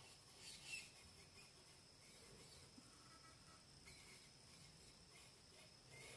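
Near silence with faint, brief high-pitched crackling, strongest just under a second in and again about four seconds in, over a steady faint high whine.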